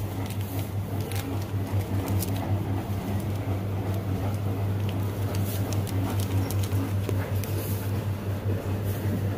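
Market stall background: a steady low hum under scattered light clicks and rustles.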